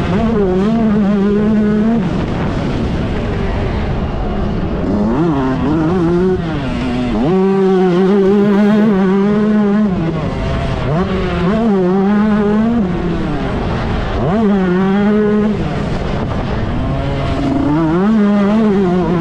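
A 125cc two-stroke motocross bike engine racing, its pitch rising and falling again and again as the throttle is opened and closed, with a few sharp revs up.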